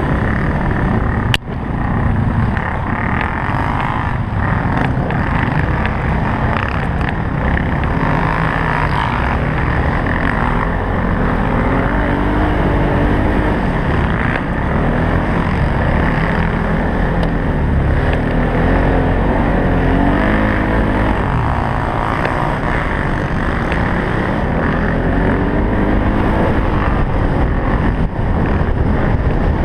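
Polaris Sportsman 570 utility quad's single-cylinder engine racing over rough ground, its revs repeatedly climbing and dropping as it accelerates and backs off, over the rumble and rattle of the ride. The sound breaks off briefly about a second and a half in.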